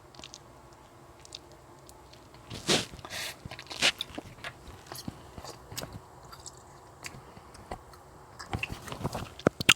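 Close, sparse clicks and small crackles of mandarin oranges being eaten: segments pulled apart, bitten and chewed. There are louder pops about three and four seconds in and a quick flurry near the end.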